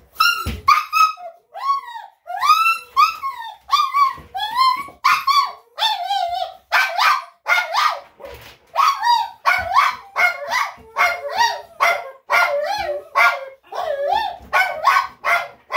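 Small dog barking over and over in short, high-pitched cries, about two a second, each call rising and falling in pitch.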